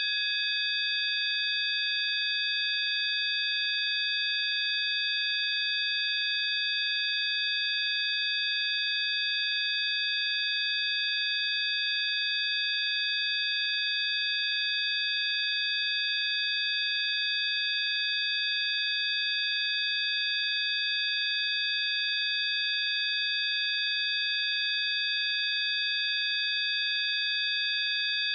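Synthesized sine-wave tones of a healing-frequency track: several high, pure tones held together as one unchanging electronic drone.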